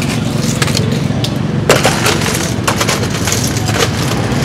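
Metal cooking utensil clanking against a pan of shellfish with irregular sharp knocks, the loudest a little under two seconds in, over a steady low rumble.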